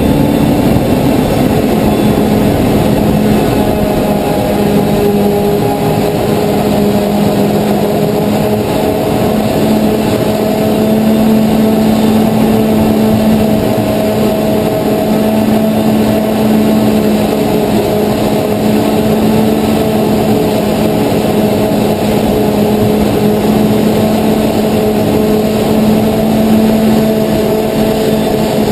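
Self-propelled forage harvester running steadily under load while chopping standing maize. It gives a loud, even machine hum with a few held tones.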